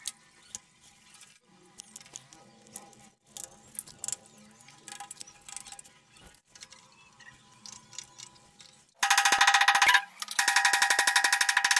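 Hammer rapidly tapping a steel chisel to chip the ceramic wall tile out around the pipe points, each blow giving a ringing metallic clink. The rapid tapping starts about nine seconds in, stops briefly, then resumes. Before it there are only faint clicks and knocks as the tap fittings are handled.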